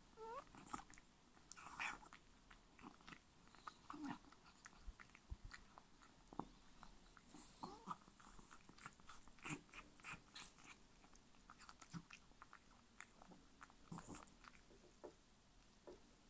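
A Persian cat chewing and smacking on pieces of pork from a plate: quiet, irregular wet clicks and bites.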